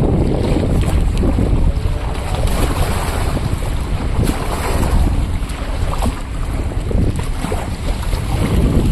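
Strong gusty wind buffeting the microphone, over choppy river water.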